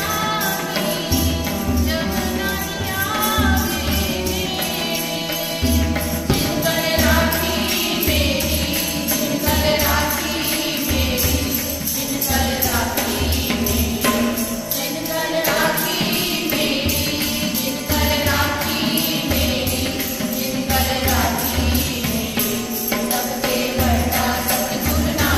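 Sikh devotional kirtan: a group of women singing in unison to a harmonium's held chords, with tabla drums keeping a steady rhythm and a hand-held jingling percussion instrument shaken along.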